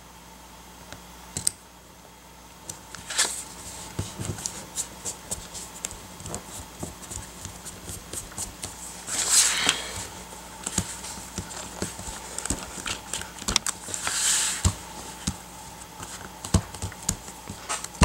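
Paper and cardstock being handled and pressed down on a cutting mat: light taps, crinkles and rustles, with two longer swishes of paper sliding, about nine seconds in and again about fourteen seconds in.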